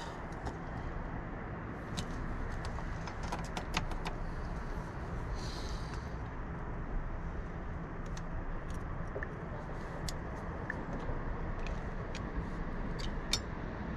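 Hand tools clicking and clinking against the metal front hub of a Can-Am X3 UTV, scattered light metallic ticks over a steady low rumble.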